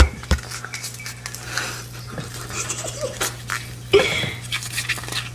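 Easy Mac cheese powder packet being handled and crinkled while someone tries, and fails, to tear it open. There are scattered small clicks and a thump about four seconds in, over a low steady hum.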